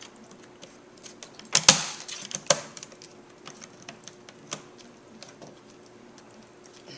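Plastic hinge-cover bezel of a Dell Inspiron 1501 laptop being pressed and snapped into its clips: a cluster of sharp snaps and clicks about one and a half to two and a half seconds in, then lighter scattered clicks.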